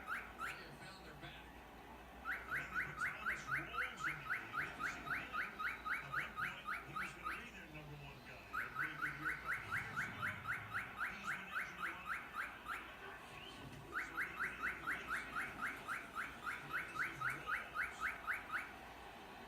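Male cockatiel singing: a quick, evenly spaced series of short rising whistled notes, about five a second, delivered in three long runs with short pauses between them.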